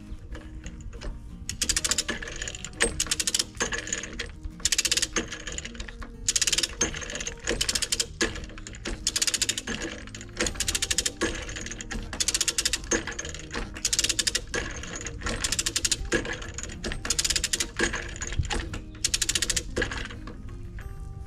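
Hand-cranked ratchet come-along being worked, its pawl clicking rapidly in repeated short bursts, one per stroke of the handle, starting about a second and a half in. The winch is hauling a chain under load to pull a racked wall back toward plumb.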